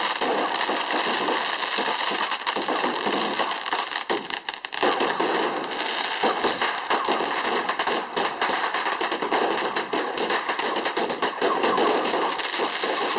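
Fireworks going off in a rapid, continuous stream of crackling bangs, with a brief lull about four seconds in.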